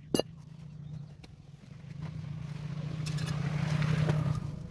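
A motor vehicle passing by, its noise swelling over a couple of seconds and then fading, over a steady low hum, with a single sharp click just after the start.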